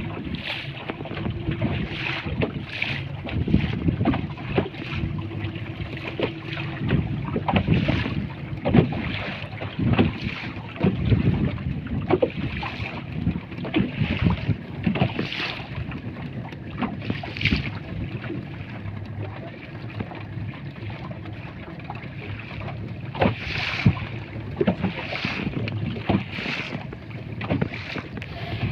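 Small wooden fishing boat under way at sea: wind buffeting the microphone and water slapping against the hull, in irregular splashes.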